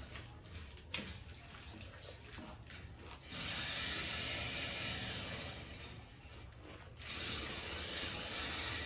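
Close-up chewing and crunching of jhal muri, spiced puffed rice with crisps and dal moth: crackly clicks at first, then denser, steady crunching.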